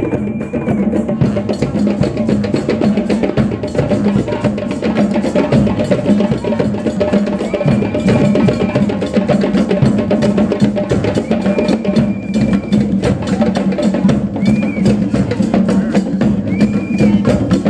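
Percussion-heavy music with rapid, dense drumming over a steady low tone, and a short high tone that comes back several times.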